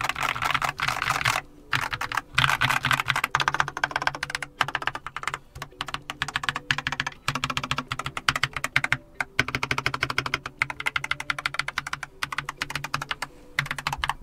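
Keychron K8 QMK Version 2 mechanical keyboard with Keychron Banana tactile switches, typed on quickly in bursts with a few short pauses; the board sounds hollow inside.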